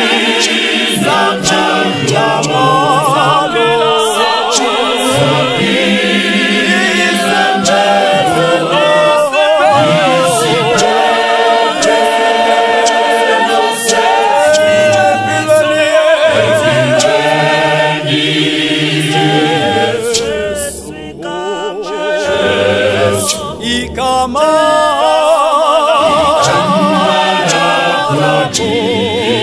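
Gospel choir of men and women singing a cappella in harmony, with a low bass part under the melody. It briefly grows quieter a little over two-thirds of the way through, then comes back to full voice.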